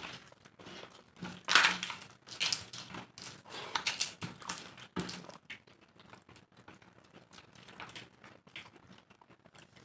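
Eating sounds of khichdi and papad eaten by hand: irregular crisp crunching and crackling of papad being broken and chewed, mixed with soft squelching of the rice and lentils. The sounds are louder and denser in the first half, then fainter.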